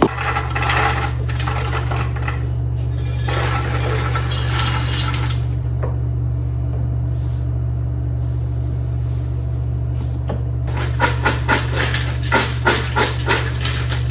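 Microwave oven running with a steady low hum while popcorn cooks. About eleven seconds in, the kernels start popping, roughly three sharp pops a second.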